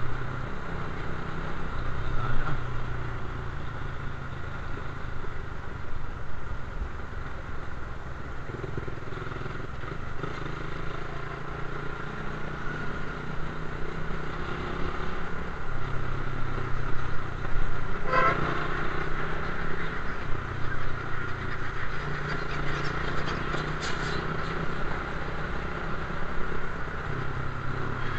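Suzuki Raider 150 motorcycle's single-cylinder four-stroke engine running while riding in traffic. Its note steps up and down every few seconds with throttle and gear changes, over steady wind and road noise. A short rising sound comes about 18 seconds in.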